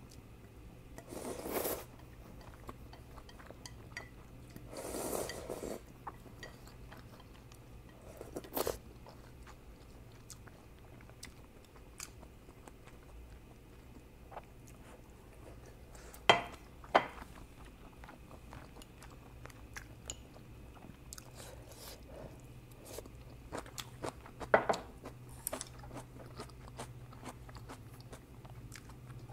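Eating sounds: two long slurps of ramyun noodles near the start, then chewing with small crunches and wet clicks. A few sharp clinks of chopsticks and tableware, two close together about halfway through, are the loudest sounds.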